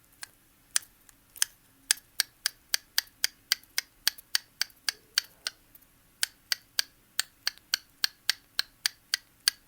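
Cockatiel making its chicken imitation: a long run of sharp, even clicks, sparse at first and then about three a second, with a short pause about halfway through.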